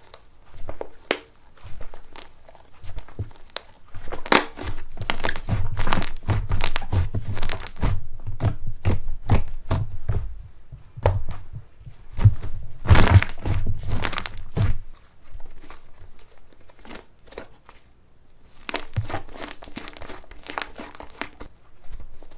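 Slime being squeezed and pressed by hand: rapid sticky clicking and crackling air pops that come in bursts, with a thinner stretch between them.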